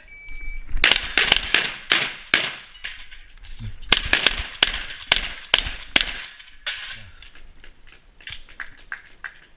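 A shot timer's steady electronic beep, then rapid shotgun fire: many shots in quick succession for about five seconds, after which the shots become sparser and fainter.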